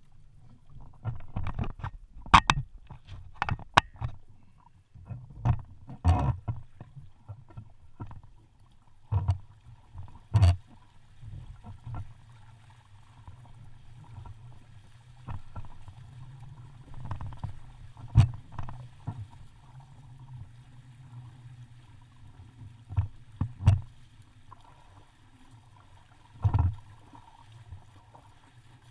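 Sounds aboard a small sailboat: irregular knocks and splashes every few seconds over a steady low rumble.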